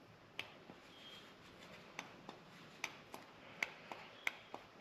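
Faint clicks of a handheld wireless light-switch remote's button being pressed and released again and again, the clicks coming in pairs about a quarter second apart. The remote is being used to try to switch the shop lights on.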